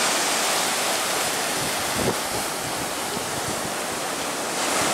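Ocean surf washing and churning below, with wind noise on the microphone; a slightly louder wash about two seconds in.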